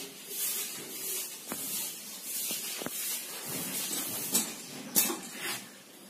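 Mukhi pigeons cooing low, with rustling and several sharp clicks, the loudest two near the end.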